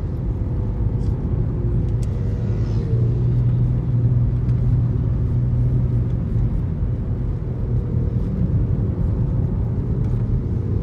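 Steady low road and engine rumble heard inside the cabin of a moving car, with faint rising and falling engine pitch as it drives along.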